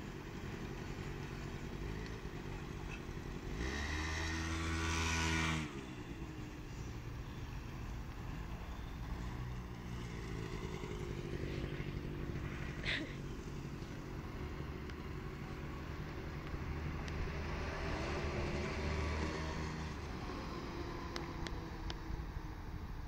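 Honda Lead scooter's small engine revving up and down as it is ridden, with its loudest rising rev cutting off abruptly about five seconds in and further swells of revving later on. A brief sharp squeak near the middle.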